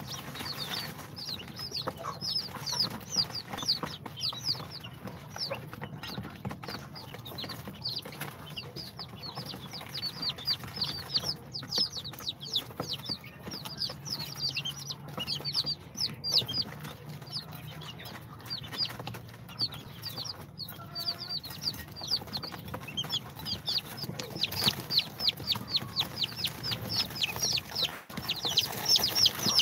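A brood of day-old domestic chicks (Brahma, Cochin bantam, Sultan and İspenç) peeping constantly. Many short, high peeps overlap, and they come thickest near the end.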